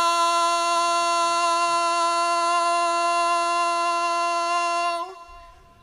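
A muezzin's voice calling the adhan, holding one long, steady, unwavering note on the final "Allah" of "ashhadu an la ilaha illa Allah". The note ends about five seconds in and dies away in the hall's echo.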